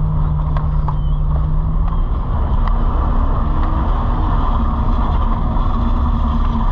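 Car engine and road noise heard from inside the cabin while driving. The engine hum steps up and rises a little about two seconds in, then holds steady, as the car speeds up.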